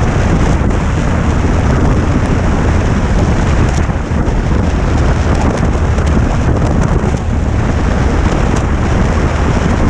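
Motorcycle riding at road speed, heard as a loud, steady rush of wind over the microphone with the bike's engine and road noise underneath.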